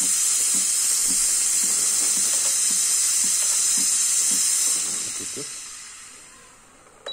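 Espresso machine's steam wand hissing out steam, a sign the boiler is heating again; the hiss holds steady, then dies away over the last two seconds.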